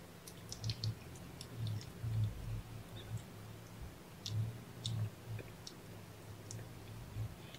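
Cats licking and grooming: small wet clicks and smacks of tongues on fur, scattered irregularly, over a low pulsing hum.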